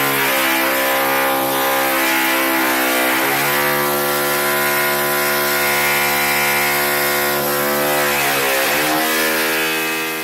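A motor running at a steady speed, its pitch stepping up slightly about three seconds in and dropping back near the end.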